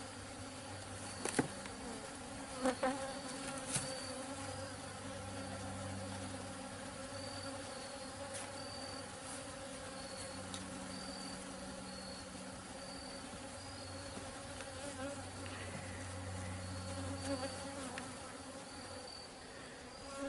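Honey bees buzzing around an opened hive, a steady hum. Three sharp knocks of wooden hive boxes being handled come in the first four seconds.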